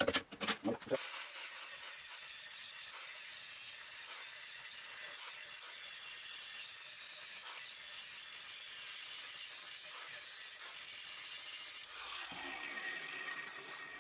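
A cordless driver setting a screw with a rattling, clicking run for about the first second. Then an angle grinder's cutting disc cuts through steel clamped in a vise: a steady, high, hissing grind that holds on to the end.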